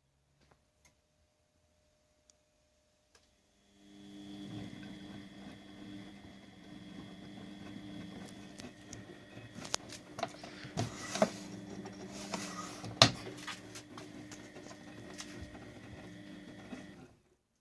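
Siemens Siwamat 870 washing machine: after near silence, its motor starts about four seconds in and runs with a steady hum. A cluster of sharp clicks and knocks comes partway through, and the motor cuts off shortly before the end, like one turn of the drum in a wash cycle.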